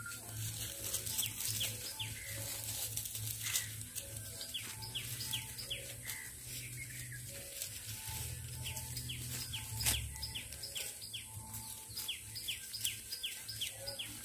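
A bird calling outdoors, repeating short high notes that fall in pitch in quick runs, with scattered clicks and rustles.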